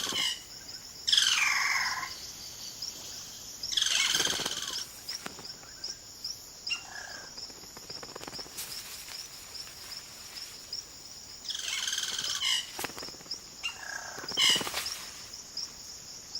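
Yellow-rumped caciques calling: a few loud, separate calls, one sliding steeply down in pitch about a second in, over a steady high insect trill.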